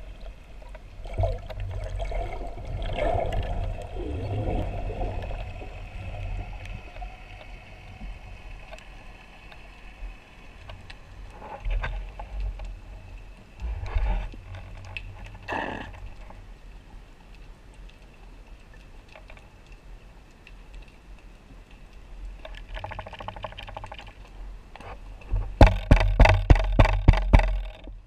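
Underwater sound picked up through a camera housing on a speargun: a steady low rumble of water with faint steady tones above it and a few single knocks. Near the end comes a rapid run of loud clicks and knocks.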